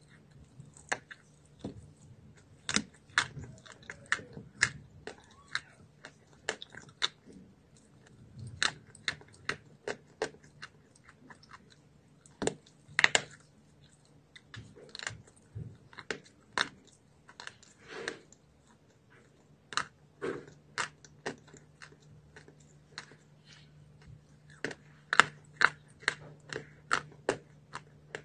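A person biting and chewing pieces of chalk close to the microphone: sharp, dry crunches come irregularly, sometimes several in quick succession, with short pauses between bites.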